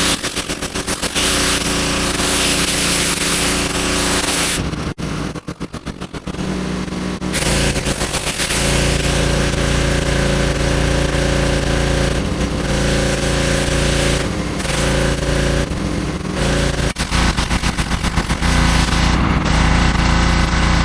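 Gas-engine pressure washer running under load while its wand blasts a jet of water onto a concrete driveway, a steady engine note under a loud hiss of spray. About five seconds in the spray breaks off into rapid pulsing for a couple of seconds, then comes back.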